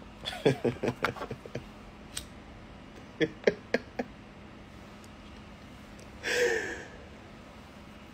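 Scattered clicks of a computer mouse and keyboard, a quick run of them in the first second or so, then a few more; a short hiss comes about six seconds in.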